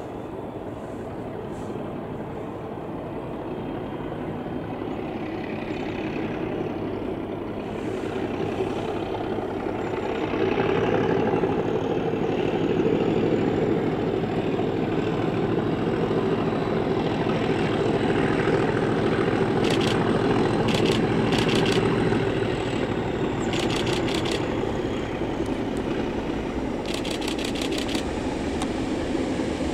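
British Rail Class 37 diesel-electric locomotive, its English Electric V12 engine working hard under power, getting steadily louder as it approaches, with a faint high whistle above the engine note. A few short bursts of rapid clicking come late on.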